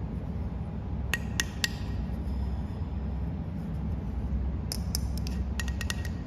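Small hard plastic toy food pieces, a toy tart and its ribbed plastic cupcake-case base, clicking as they are handled and pulled apart: three light clicks a little after a second in, then a quicker run of clicks near the end. A steady low hum lies underneath.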